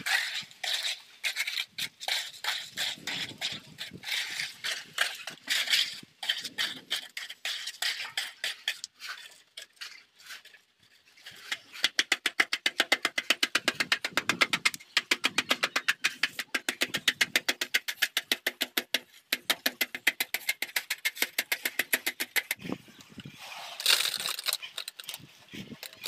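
Hand tools scraping and tapping on wet concrete as a floor is spread and levelled: irregular scrapes at first, then fast, even tapping strokes, several a second, from about halfway in.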